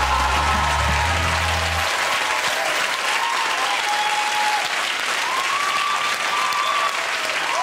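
Studio audience applauding steadily. Music with a bass line stops about two seconds in.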